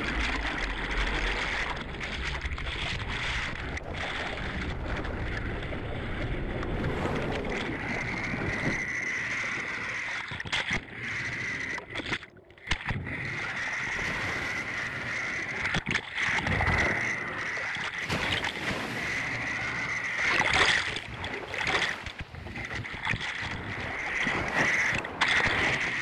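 Rough sea water rushing and splashing right against a small camera at the waterline, with a steady high whine throughout. The sound drops out briefly several times, most deeply about twelve seconds in.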